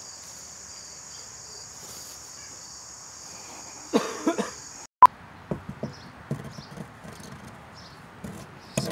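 Steady chirring of crickets for the first five seconds, with a brief vocal sound near the end of it. After a sharp click, a run of irregular light knocks and taps of a stick against a wooden board.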